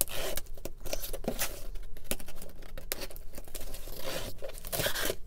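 A cardboard shipping box being opened by hand: packing tape tearing and cardboard and paper rustling in short, irregular strokes.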